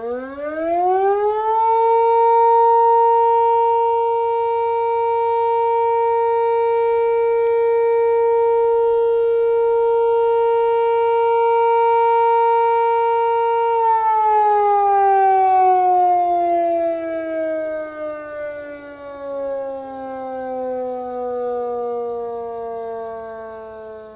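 Motor siren sounding a time signal. It winds up quickly to a steady wail over the first two seconds and holds one pitch for about twelve seconds, then winds down slowly with its pitch falling.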